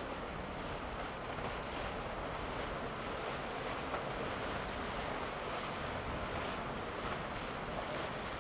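Steady rushing wash of boats moving through the water, with wind on the microphone.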